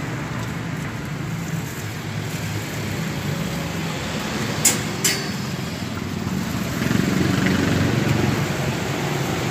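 Steady low rumble of road traffic or a running vehicle engine, with two sharp clicks about halfway through.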